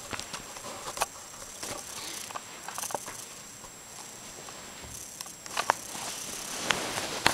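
Close-up scratching, rustling and scattered light taps and clicks as a cat paws and tugs at a camera's wrist strap, jostling the camera, with the taps busier near the end. A faint steady high tone runs underneath.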